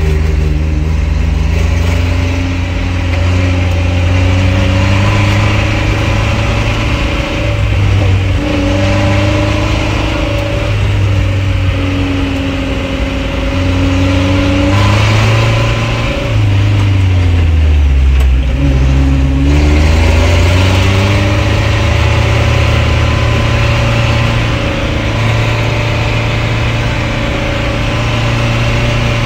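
Engine of an off-road vehicle heard from inside its cabin while driving on a dirt track, with steady tyre and road noise. A little past halfway the engine note falls, then climbs back as it picks up speed again.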